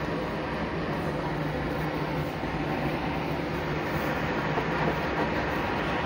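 A steady rushing noise with a low hum underneath.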